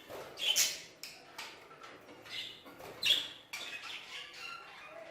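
A flock of budgerigars chattering with quick chirps and scratchy calls. Two louder calls stand out, about half a second in and again about three seconds in.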